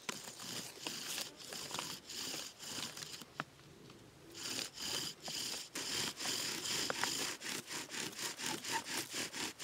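Bow drill: the wooden spindle grinds in the fireboard's socket with each back-and-forth bow stroke as the hole is burned in before a notch is cut. The strokes pause briefly a little before halfway, then resume in a quicker, steady rhythm.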